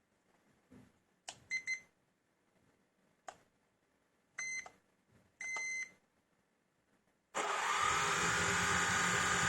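Quadcopter drone starting up: a few clicks and short electronic beeps, then about seven seconds in the motors start abruptly and the propellers run with a steady, loud whir.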